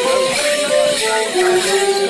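Morris dance tune played on a squeezebox, a melody of held notes that steps down in pitch about halfway through, with the dancers' leg bells jingling along.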